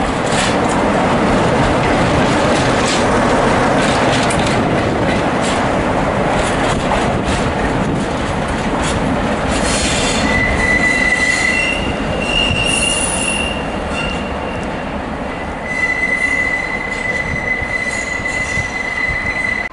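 Diesel locomotive running light past at close range, its engine and wheels loud. About ten seconds in, as it moves away round the curve, the wheels set up high steady squeals, first one pitch, then a higher one, then the first again from about sixteen seconds on.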